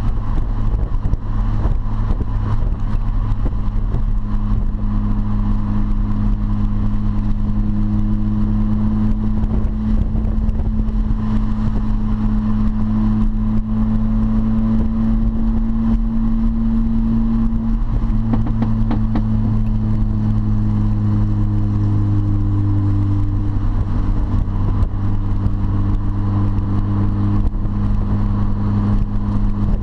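R53 Mini Cooper S's supercharged 1.6-litre four-cylinder with a straight-piped exhaust, droning steadily while cruising, heard from inside the cabin. Its pitch dips slightly a little past halfway and comes back up.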